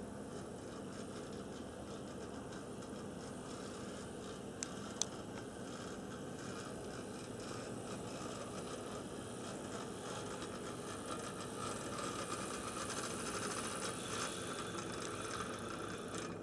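HO-scale brass model diesel locomotive (Overland Models Union Pacific Dash 8-40CW) running on track: a steady whir of its motor and gears with the wheels rattling on the rails, getting a little louder toward the end. Two sharp clicks come close together about five seconds in.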